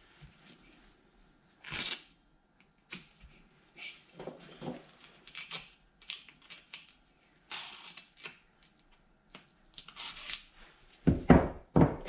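Masking tape being pulled off the roll in short pulls, torn and pressed down by gloved hands onto a hubcap, with a few louder knocks near the end.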